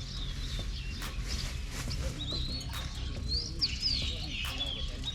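Small birds chirping, with quick rising and falling calls clustered from about two to four and a half seconds in, over a low steady rumble and a few sharp ticks.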